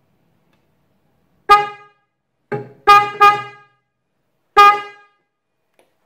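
Bosch H3F snail-type electric car horn sounding in five short honks, one steady note each, as its wire is tapped against a car battery terminal. The second honk is weaker and the middle two come as a quick pair.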